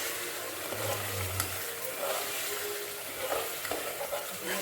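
Spicy curry masala sizzling in hot oil in a cooking pot while being stirred, with one short click about a second and a half in.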